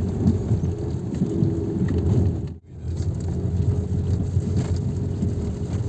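Car engine and tyre noise heard from inside the cabin while driving, a steady low rumble that cuts out briefly about halfway through.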